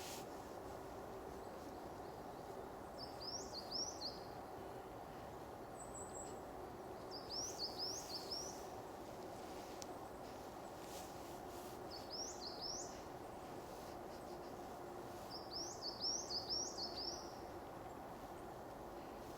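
A songbird singing in woodland: four short phrases of quick upswept high notes, about four seconds apart, over a steady background of outdoor ambience.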